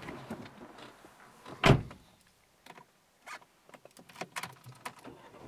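A single loud thump about a second and a half in, followed by scattered faint clicks and knocks.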